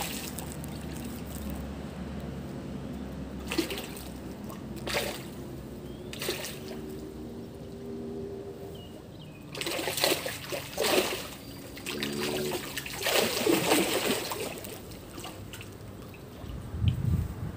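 Golden barbs splashing at the water surface as they snatch floating bread: scattered short splashes and slaps, busiest in the second half, over a steady gentle lapping of water.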